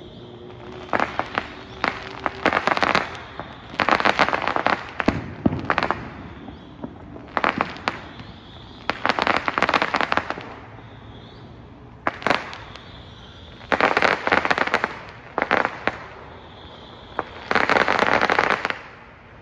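Fireworks going off: about a dozen separate bursts of rapid crackling pops, each lasting from a fraction of a second to about a second and a half, coming every second or two.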